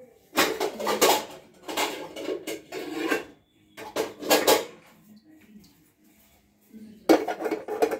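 Steel kitchen utensils and pots clattering and scraping in four short bursts with quiet gaps between.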